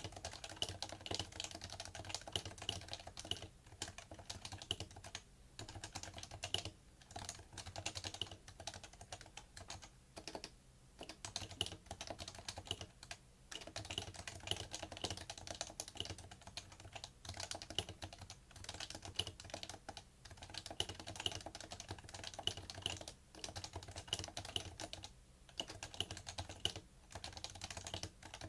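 Fast, steady typing on a PFU Happy Hacking Keyboard Professional2 with Topre electrostatic capacitive switches: a dense stream of key strokes, broken by brief pauses every few seconds.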